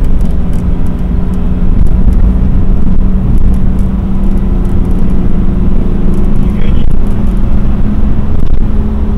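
Cabin noise of a Mercedes-Benz W126 driving on a snowy, slushy road: a steady low rumble of engine and tyres with a steady hum.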